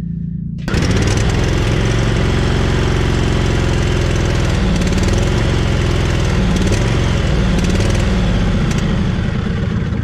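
Riding mower engine running steadily, driving its fuel pump, which is being tested by pumping gasoline out into a jar. The engine gets suddenly louder less than a second in, then holds an even speed.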